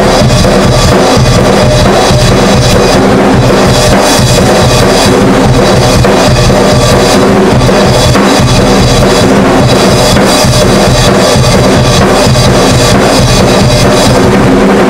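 Acoustic drum kit played continuously, with bass drum, snare and cymbal strikes, very loud.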